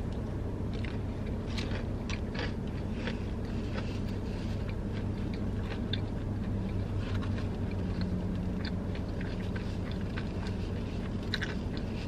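Close-up biting and chewing of a breaded fried chicken sandwich, with soft crunches and mouth clicks scattered through, over a steady low hum.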